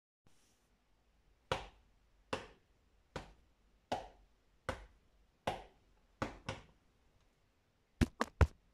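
A series of sharp taps, roughly one every second, each with a short ring-out, ending in three quick taps in a row.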